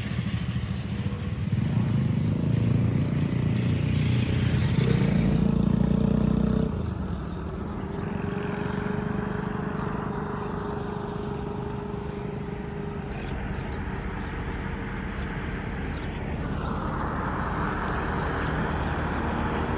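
Road traffic noise: vehicle engines, with a loud low rumble for about the first seven seconds that drops off suddenly, then a quieter steady hum.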